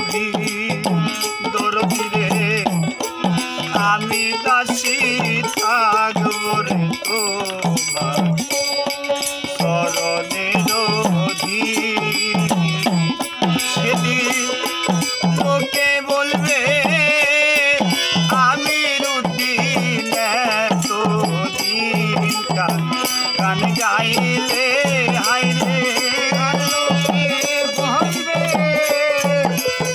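Bengali Baul folk song: a man singing to harmonium and plucked dotara, over a steady, evenly repeating low beat.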